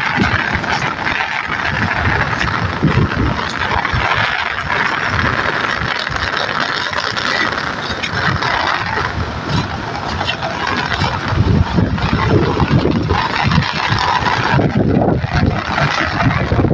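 Gusty wind buffeting the phone's microphone in irregular low thumps, over a steady rushing noise of wind.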